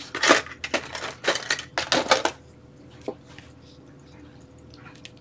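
Hand tools clattering and rattling against each other and the work table as they are rummaged through, in a quick run of knocks over the first two seconds or so, then one light click.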